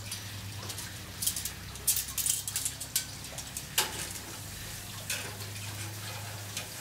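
Metal spatula and tongs clicking and scraping on a gas grill's grate as stuffed portobello mushrooms are worked loose and lifted off, with a cluster of clicks in the middle and one more about five seconds in. A steady low hum runs underneath.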